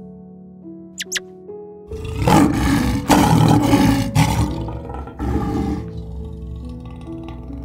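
A lion roaring twice over background music: a long roar starting about two seconds in and a shorter one about five seconds in. A few short high squeaks come about a second in.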